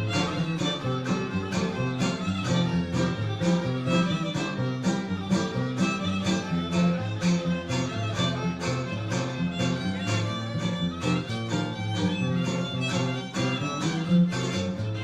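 String trio playing a polka: a fiddle carries the melody over steady, rhythmic strummed guitar chords.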